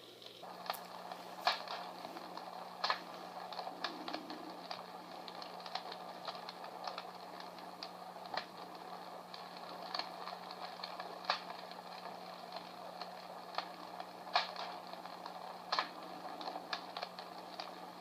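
Recorded crackling-fire sound effect played from a small battery-operated fire crackler speaker: irregular snaps and pops, a few sharper than the rest, over a soft hiss. A steady low hum runs beneath.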